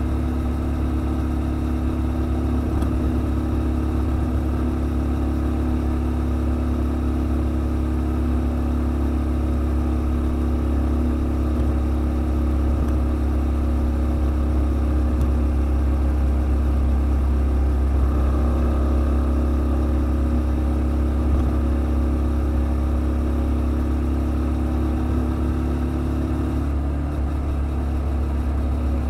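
Kymco Quannon 125 motorcycle's single-cylinder engine running steadily while riding, heard from a helmet-mounted camera with a steady low rush of wind and road noise; the engine note shifts near the end.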